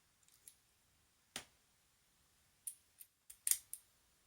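Small, sharp clicks and taps of metal lock parts and tools being handled while a padlock is taken apart. A few faint ticks come first, then a clear click at about a second and a half in, then a quick run of about five clicks near the end, the loudest among them.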